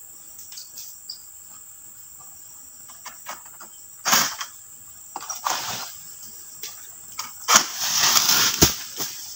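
Long-poled harvesting sickle (egrek) cutting at an oil palm's crown: palm fronds rustle and scrape in short bursts, the longest and loudest near the end, closing with a sharp knock. A steady high insect drone runs underneath.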